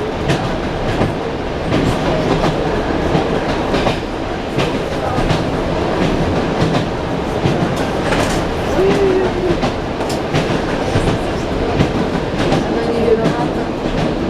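ED9M electric multiple unit running at speed, heard inside the carriage: a steady rumble with the wheels clacking again and again over rail joints.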